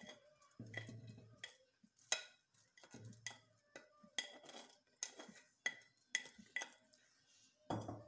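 Plastic spatula scraping and tapping against earthenware dishes as shredded chicken is pushed off a clay bowl into a pot of thick haleem: a run of short scrapes and clicks, roughly two a second, a few with a dull knock.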